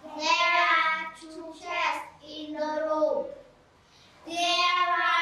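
Young schoolchildren reciting an English sentence together in a sing-song chant, the drilled "There are two chairs in the room". The chant stops about three seconds in, and a second recitation starts about a second later.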